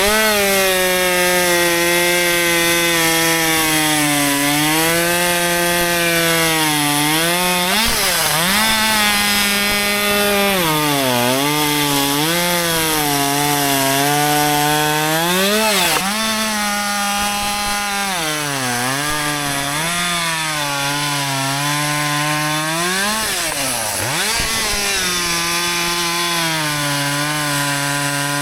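Husqvarna 564 XP two-stroke chainsaw running at high revs while cutting wood. The engine note sags and recovers again and again as the chain bites under load, with a few sharp brief drops in revs that climb straight back.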